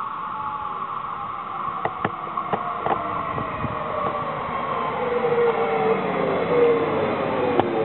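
A Stadler FLIRT electric multiple unit drawing in and slowing. Its electric motor whine falls steadily in pitch and grows louder as it approaches, with a few sharp clicks from the wheels about two to three seconds in and again near the end.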